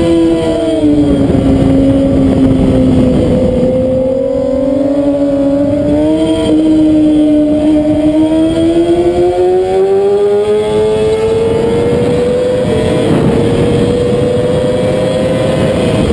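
Race motorcycle engine heard from on board with wind rushing past. The engine note falls as the bike slows into a corner, then climbs steadily as it drives out and accelerates, with brief breaks in pitch near the middle and again about thirteen seconds in.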